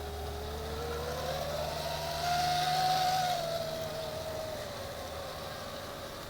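Electric motor of a radio-controlled model construction vehicle whining as it drives, rising in pitch and loudness about two seconds in, then easing back down, over a steady low hum.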